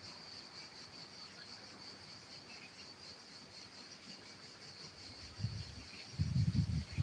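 Insects chirring in a steady, high-pitched drone. Low rumbling bursts come in near the end and are louder than the chirring.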